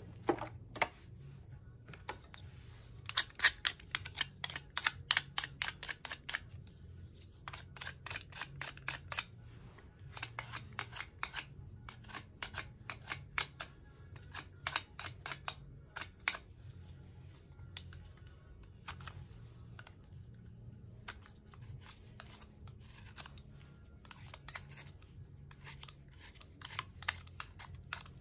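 Runs of quick, sharp clicks from hand tools working small tulsi twigs, several clicks a second, busiest in the first half and picking up again near the end.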